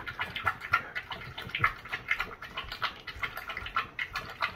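A flat-faced (brachycephalic) dog lapping water from a raised bowl: quick, irregular wet laps and slurps, several a second.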